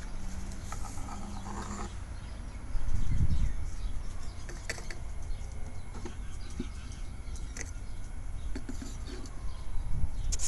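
A wooden box and its lid being handled: scattered light clicks and knocks over a steady low rumble, which swells louder about three seconds in.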